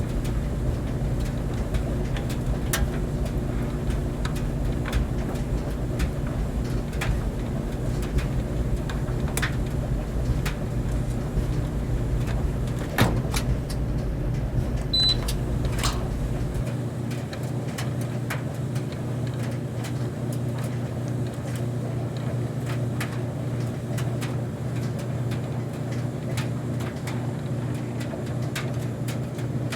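Clothes dryer running: a steady motor hum with a low rumble, and irregular clicks and knocks as the load tumbles in the drum. The deepest part of the rumble drops away a little past halfway.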